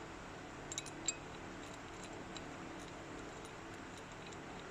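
A few light metallic clicks about a second in, then an occasional faint tick over a low steady hiss, from a bicycle quick-release pedal holder and its washer being handled and turned back onto the crank.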